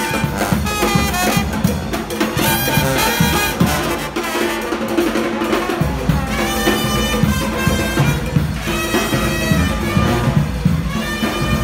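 Brass band playing jazz, horns over a sousaphone bass.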